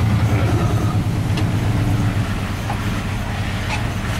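1978 GMC four-wheel-drive truck's engine running steadily under way, heard from inside the cab as a low drone, with a few faint clicks.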